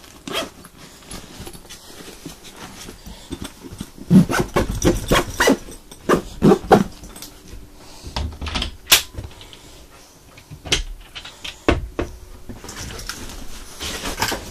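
Handling noise from a nylon trauma jump bag being shifted and closed up: a run of short rasping strokes about four seconds in, then a few sharp knocks and clicks.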